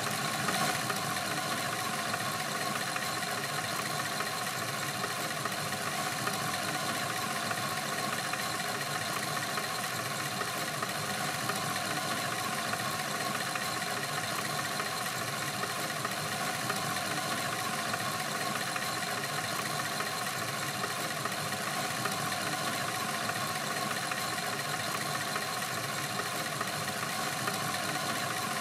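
LEGO Large electric motor driving a LEGO Technic V8 engine model, turning its crankshaft, pistons, valves, cam chain and the track belt to the radiator fan. The motor and plastic mechanism run steadily and evenly throughout.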